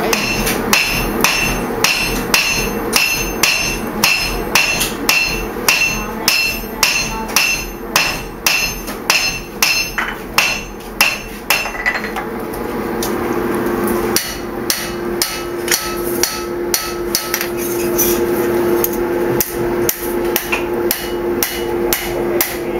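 Hand hammer blows on red-hot steel on an anvil, forging a blade. There is a steady run of ringing strikes, about two a second, that thins to scattered blows about halfway through, when a steady hum comes in.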